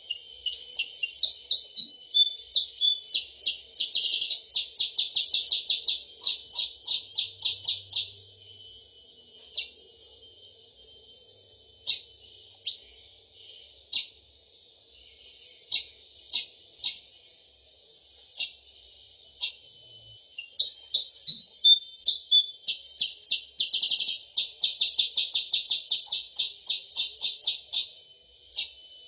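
Recorded lure call of the kutilang sutra (percang) songbird: fast runs of short, sharp, high notes, about six a second, each run lasting several seconds. Between the runs come a few scattered single notes.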